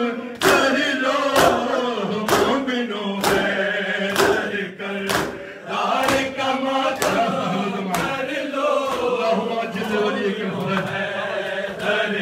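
Men chanting a Shia noha (lament), a lead male voice with a group joining in. Throughout, the mourners beat their chests together in time (matam), one sharp slap about every second.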